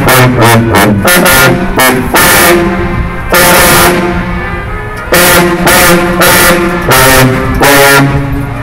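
A section of four sousaphones playing a fanfare together: loud, punchy short notes in a quick rhythm, broken by a few longer held notes.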